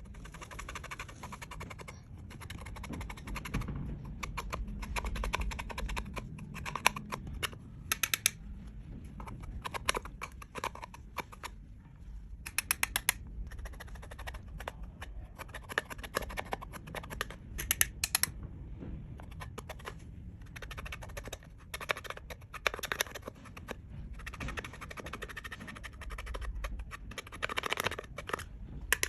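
Hands kneading and stretching glossy clear slime: clusters of rapid sticky clicks and small air-bubble pops, with softer squishing between them.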